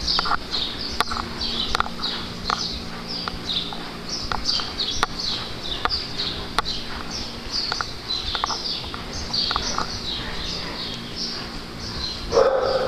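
Dogs barking and yelping during play, with short sharp yelps scattered through and one louder bark near the end. Behind them runs a high chirping, repeating two or three times a second.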